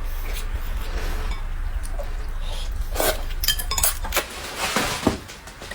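Dishes and cutlery clinking during a meal, with several sharp clinks about three to four seconds in, over a steady low hum that stops about four seconds in.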